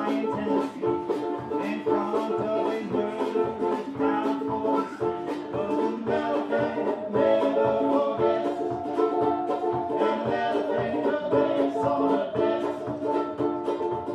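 A live string band playing an instrumental passage: banjo and other plucked strings strumming over a steady beat, with a long wavering held note about halfway through.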